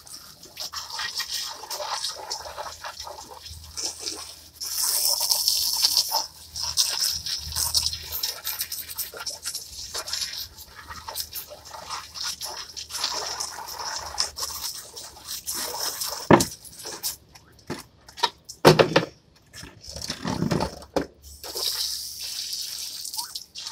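Garden hose spray nozzle hissing as the water jet plays over plastic chairs and wet pavement, coming and going as the spray is moved. Several short, loud sounds stand out about two-thirds of the way through.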